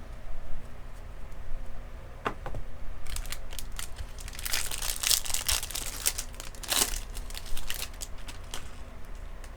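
Foil wrapper of a Topps jumbo trading-card pack crinkling and tearing as it is opened, in dense bursts of crackle through the middle few seconds.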